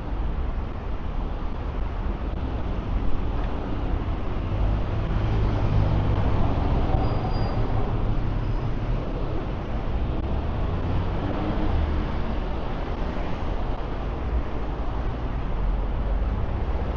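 Busy city street traffic: vehicles running past in a steady mix of engine and tyre noise, heaviest in the low engine range.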